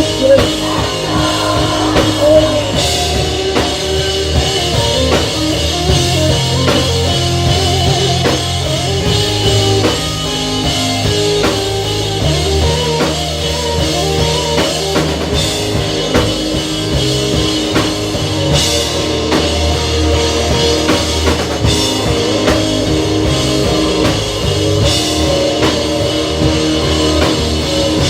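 Live rock band playing an instrumental passage, with a drum kit and guitars.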